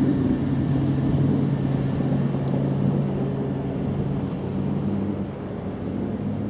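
Steady low hum of a river passenger ship's engines, with wind noise on the microphone.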